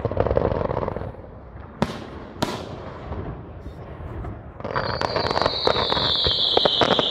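Fireworks display: shell bursts rumbling, with two sharp bangs about two seconds in. From a little past halfway, a long whistle slowly falls in pitch over dense crackling that grows louder.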